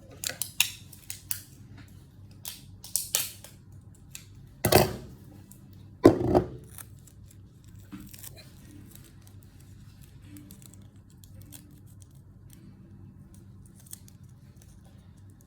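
Small plastic toy pieces clicking as they are handled and fitted together, with quick snip-like clicks in the first few seconds and two louder knocks about five and six seconds in.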